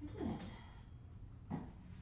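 Cat vocalising: a brief call that falls in pitch, then a second, shorter one about a second and a half in.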